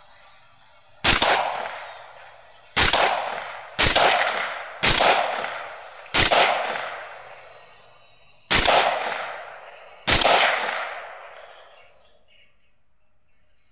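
Seven rifle shots in quick, uneven succession, some about a second apart and others two seconds apart, each followed by a long fading echo.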